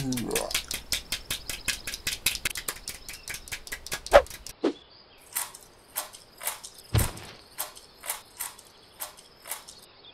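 Cartoon sound effects: a fast run of sharp clicks that thins out after about four and a half seconds to about two clicks a second. There is a short falling swoop about four seconds in and a low thump about seven seconds in.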